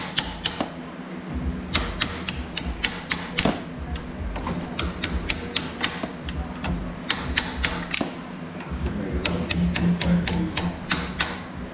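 Metal clicking in quick runs of about four or five a second, broken by short pauses, as the threaded preload collar on a Fox coil-over shock is turned to change the ride height.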